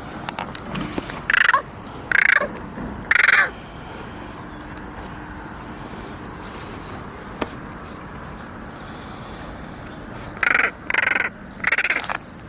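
Young carrion crow giving harsh begging calls: three in quick succession, a pause of several seconds, then three more.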